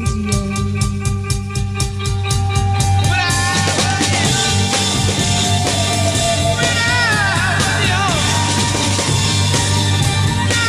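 Late-1960s psychedelic rock recording playing: drums and bass, with the full band coming in louder about two seconds in and a wailing lead line that bends up and down in pitch.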